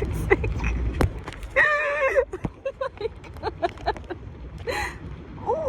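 Wind rumbling on the microphone during a parasail ride, loudest in the first second, with a woman's drawn-out exclamation at about two seconds and scattered clicks.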